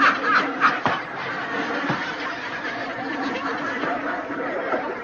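A man laughing hard: a few short bursts of laughter, then a steadier run of snickering laughter.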